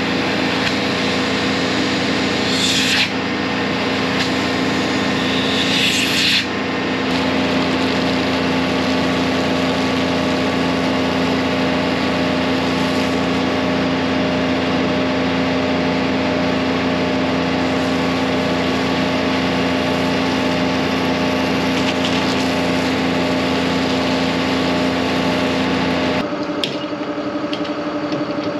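DAF combi jet-vac tanker's engine and vacuum pump running steadily, with the suction hose drawing in water and air in three short hissing gulps in the first six seconds, then a high-pressure jetting gun spraying water. About 26 seconds in the sound changes abruptly to the tanker running with a different steady hum.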